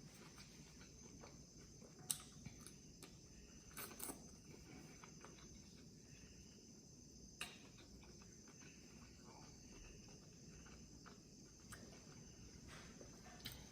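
Near silence with a few faint clicks and smacks of quiet chewing, over a steady faint high-pitched tone.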